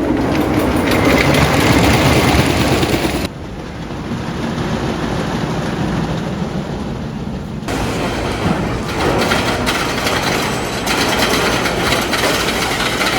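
Wooden roller coaster train rumbling and clattering along its track with rushing wind noise. The noise drops off suddenly about three seconds in and grows loud again about eight seconds in.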